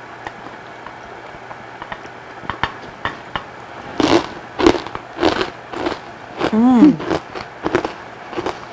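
People biting into and chewing crisp crackers topped with dip: a few light clicks, then several sharp crunches from about four seconds in, followed by a long, wavering hummed "mmm" of enjoyment.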